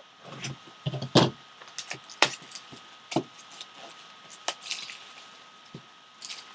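A sealed trading-collectibles box and its packaging being opened and handled by hand: an irregular run of clicks, knocks and rustles, the loudest about a second and two seconds in.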